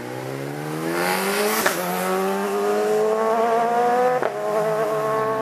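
Road-racing motorcycle engine accelerating hard out of a hairpin, its note climbing steadily. Two sharp cracks come about one and a half seconds in and about four seconds in, with the pitch dropping briefly after the second, as the rider shifts up.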